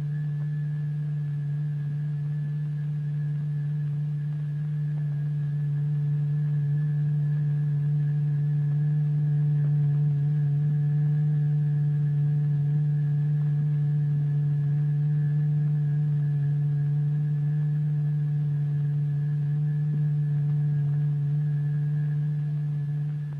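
A steady, unbroken low tone with fainter higher overtones, growing a little louder a few seconds in. It is the test tone driving the vibrating surface that makes iron filings move and form patterns in a cymatics experiment.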